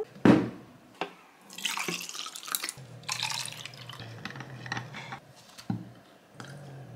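Iced jasmine rose tea being made in a clear tumbler. A sharp knock comes just after the start, then about a second of liquid splashing into the tumbler, then scattered small clinks and knocks of ice and a metal straw against the tumbler.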